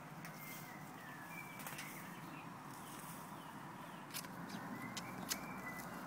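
Outdoor garden ambience: a steady background hiss with faint short bird chirps, and a few light clicks in the last two seconds.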